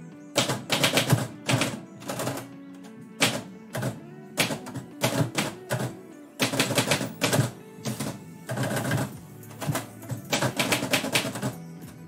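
Manual typewriter keys striking in rapid, irregular bursts of typing, with pauses of about a second between bursts. Background music plays steadily underneath.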